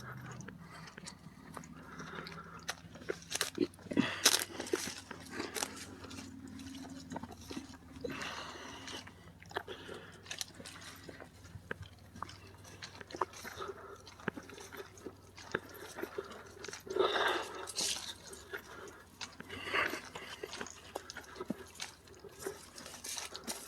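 Footsteps crunching on a woodland trail, irregular, with a few louder crunches about four seconds in and again around seventeen to twenty seconds in.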